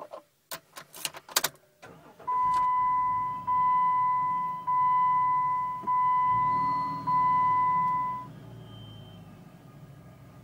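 A car's warning chime sounds five times in a row, each a steady beep of a little over a second, over a low hum. It is preceded by a quick cluster of sharp clicks, with the engine not started; the starter would not turn.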